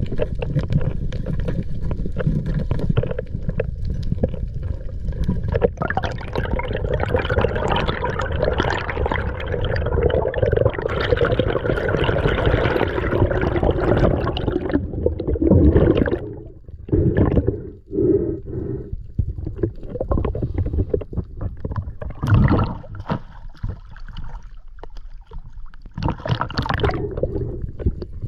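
Water rushing against an underwater camera as a freediver swims up from the reef, a steady noise that swells partway through, then breaks into separate gurgles and splashes in the second half.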